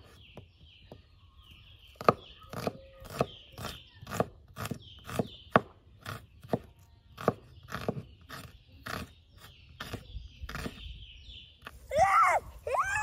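Kitchen knife chopping an onion on a wooden cutting board, a steady run of sharp strokes about two a second. Near the end a young goat bleats twice.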